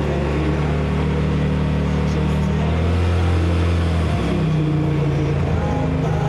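Off-road vehicle's engine running steadily while driving on sand, its low drone shifting in pitch about three seconds in and again about a second later.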